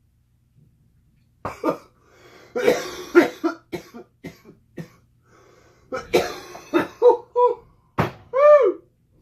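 A man coughing in several hard fits from the burn of ghost pepper chips, ending in a short strained vocal groan.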